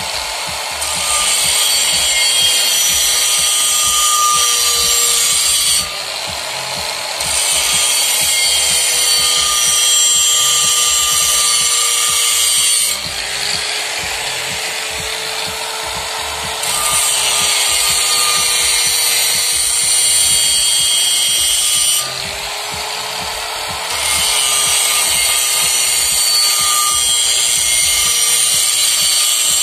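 Electric angle grinder running with a steady whine, its disc grinding the inside of a brake drum in four long passes, each adding a harsh high-pitched grinding hiss, with the grinder spinning freely for a few seconds between passes.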